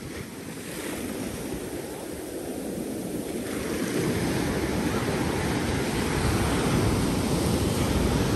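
Ocean surf washing up over sand, a steady rush of breaking waves that grows louder about three and a half seconds in, with wind rumbling on the microphone.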